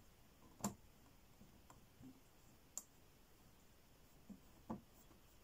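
Near silence, broken by a few short, light clicks and taps. The loudest comes just under a second in and a sharp one near the middle.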